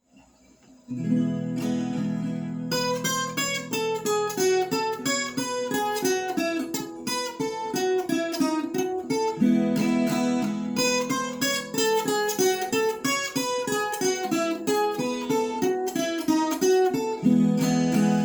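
Viola caipira, the Brazilian ten-string folk guitar, playing the instrumental introduction of a sertanejo song. Quick plucked melodic runs ring over sustained low chords, starting about a second in.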